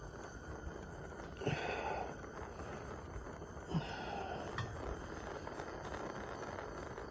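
A steady low background noise with two loud breaths, one about a second and a half in and one about four seconds in, and a few small handling clicks.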